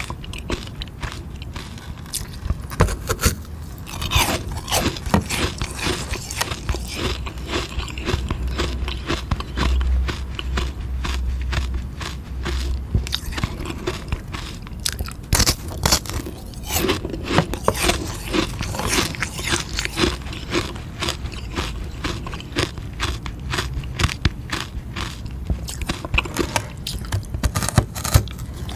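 Biting and chewing a frozen sugar-water ice pop: a dense, irregular run of sharp crunches as the ice is bitten and ground between the teeth.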